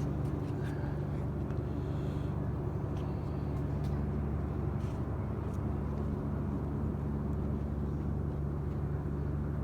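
Steady drone of a car's engine and road noise, with a few faint clicks.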